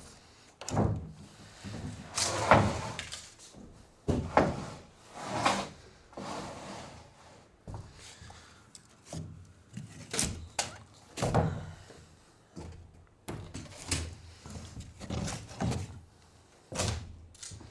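Old wooden boards and junk being handled inside a metal shipping container: a string of irregular knocks and thuds with some scraping. The loudest knock comes about two and a half seconds in.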